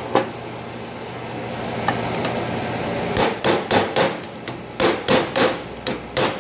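Hammer striking a steel drift set against the old shaft seal inside a Ford 7000 cast-iron water pump housing, driving the seal out. The blows start about halfway through and come quickly, about three a second, each with a short metallic ring.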